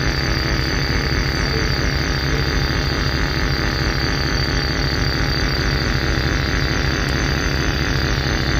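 Drone noise synthesizer putting out a steady, dense noise drone: a fast crackling rumble underneath, a wash of hiss through the middle and a steady high tone on top.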